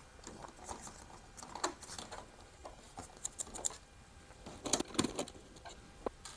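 Scattered light clicks and taps of hands handling a disassembled LCD monitor's sheet-metal chassis and flat cables, in small clusters with the busiest around three to five seconds in.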